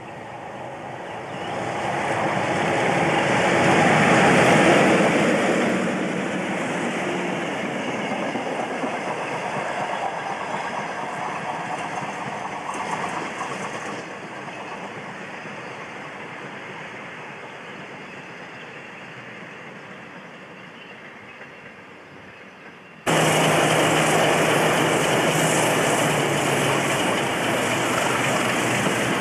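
British Rail Class 37 diesel locomotive and its train passing; the sound of its English Electric V12 diesel engine and the wheels swells to a peak about four seconds in, then fades slowly as the train draws away. After a sudden cut near the end, another Class 37 runs close by, its engine loud and steady.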